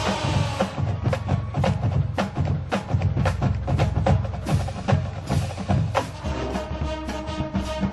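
Marching band playing, with drums and other percussion striking hard and often over sustained band chords.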